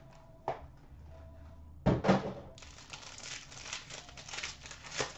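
A foil hockey-card pack is knocked down a couple of times about two seconds in. After that its wrapper crinkles for a few seconds as it is opened.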